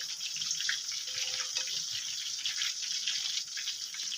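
Chicken pakoras deep-frying in hot oil in a karahi: a steady sizzling hiss with small crackles.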